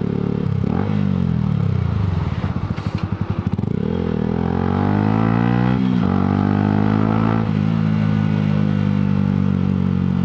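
Yamaha motorcycle engine heard from the rider's helmet: revs fall as the bike slows, then rise as it pulls away and changes up a gear about six seconds in, before settling to a steady run.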